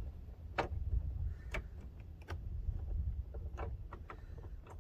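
Scattered light clicks and taps of small hardware and plastic being handled at a truck's interior door panel, about five over a few seconds, over a steady low rumble.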